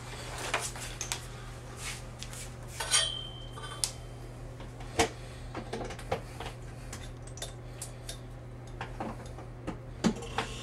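Scattered light clicks and clinks of a refrigerator's power plug and cord being handled and pushed into a wall outlet, over a steady low hum.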